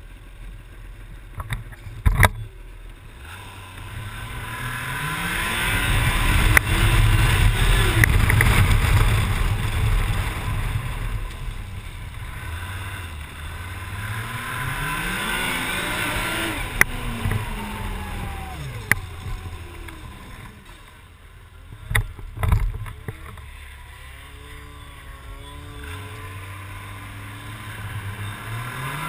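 Arctic Cat snowmobile engine pulling away, its pitch rising and falling twice as the sled accelerates and eases off, loudest a few seconds in, then running more slowly and quietly. A few sharp knocks near the start and about two-thirds through.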